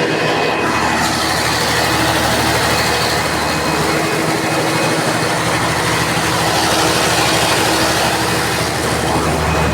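Caterpillar C18 inline six-cylinder diesel engine of a 600 kVA generator set running steadily on a trial run.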